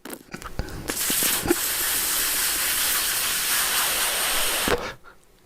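Long, steady, breathy hiss of a big vape hit, lasting about four seconds and cutting off shortly before the end, with a few faint clicks and crackles at the start.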